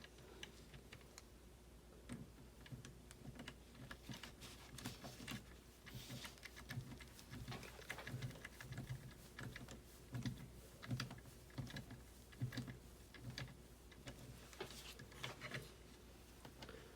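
Irregular run of light clicks and taps from small plastic kit parts being handled and fitted together during an RC car chassis build, with occasional dull knocks on the work surface.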